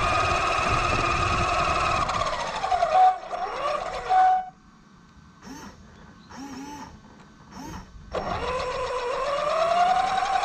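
Axial Yeti XL RC truck's electric motor and drivetrain whining, the pitch rising and falling with speed. About four seconds in it cuts out for a few seconds, leaving only faint sounds, then comes back and climbs in pitch as the truck speeds up again.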